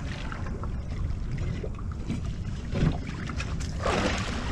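Wind buffeting the microphone over water sloshing against a small boat's hull, a steady low rumble with a louder gust near the end.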